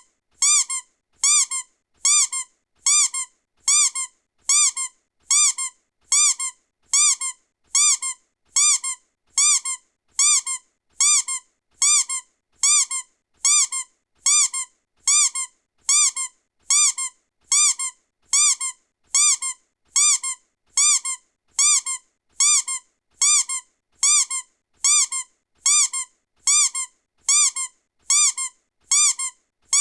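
A short, high-pitched squeak sound effect looped over and over at an even rate of about two squeaks a second, each squeak a quick up-and-down bend in pitch.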